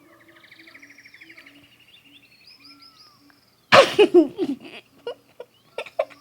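Birds chirping and trilling softly, then a loud animal call breaks in just before the four-second mark, followed by short clicks and more chirps.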